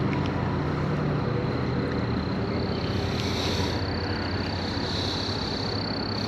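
A steady low engine-like hum with a constant thin high-pitched whine above it.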